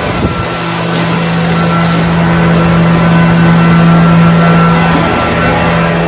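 A hose spraying water onto a concrete parlour floor, an even hiss, over a steady low mechanical hum.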